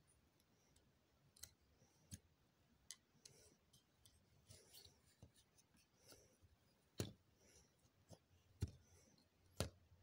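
Faint, scattered clicks from a plastic transforming robot toy as its limbs and joints are moved by hand. Three sharper clicks come near the end.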